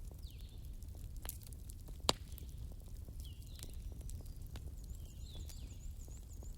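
Wood fire crackling, with scattered pops and one sharp snap about two seconds in, over a low steady rumble. Small birds chirp now and then, with a quick run of high repeated notes near the end.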